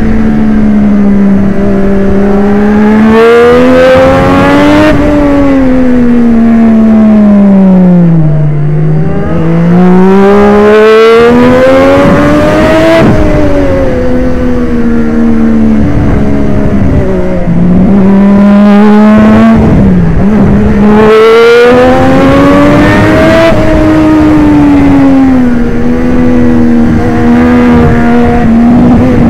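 Triumph Daytona 675's three-cylinder engine at racing speed, loud and close: its pitch climbs in steps as it changes up through the gears, then falls away as it is braked and shifted down, three times over.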